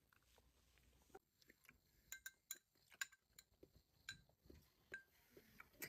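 Faint, scattered clinks of metal spoons tapping ceramic soup bowls, a few of them ringing briefly.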